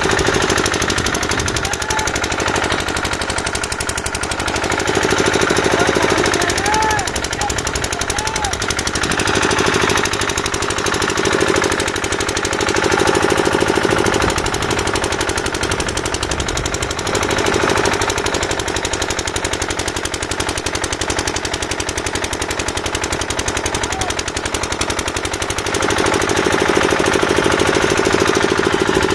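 Continuous rapid mechanical clatter from construction equipment, with a motor hum that swells and fades several times.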